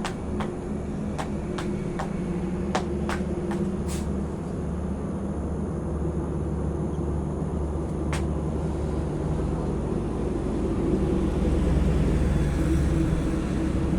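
A steady low engine rumble, growing a little louder near the end. Sharp clicks come several times in the first four seconds and once at about eight seconds.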